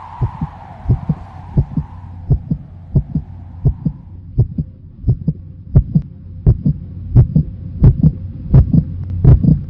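Heartbeat sound effect: paired lub-dub thumps about every 0.7 seconds over a steady low hum, growing louder toward the end.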